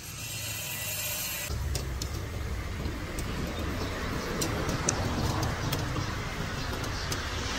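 A high hiss cuts off about one and a half seconds in and gives way to a steady low rumble of street traffic, with scattered light metal clicks of tongs on the grill.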